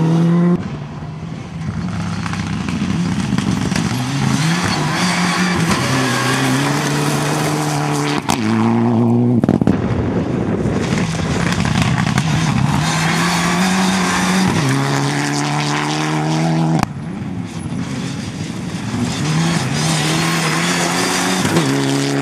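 Rally cars at full throttle on a gravel stage, engines revving hard with the pitch climbing and dropping at each gear change, over the hiss of tyres throwing gravel. The sound jumps abruptly three times as one car's pass gives way to the next.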